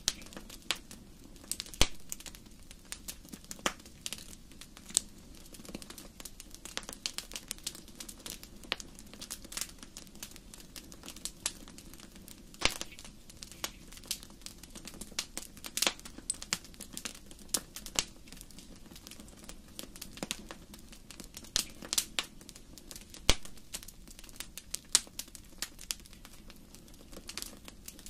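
Wood fire crackling in a fireplace: irregular sharp pops and snaps, several a second, over a soft low rumble from the flames.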